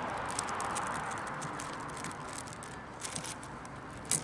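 Small clicks and rattles of a new SilBlade silicone wiper blade being handled and worked onto a bare wiper arm, with one sharper click near the end, over a steady outdoor hiss.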